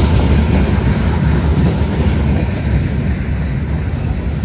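Norfolk Southern freight train rolling past, a loud steady rumble of wheels on rail that eases slightly near the end.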